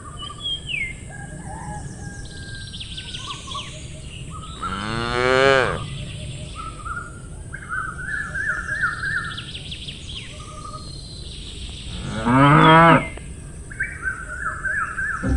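Cows mooing twice, each a long call of about a second and the loudest sounds here. Small birds chirp and twitter throughout.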